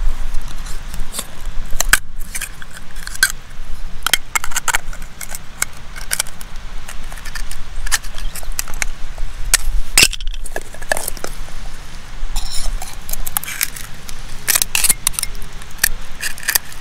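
A knife blade scraping and clicking against scallop shells as scallops are shucked by hand: scattered short scrapes and clinks of steel on shell, with a few sharper clicks.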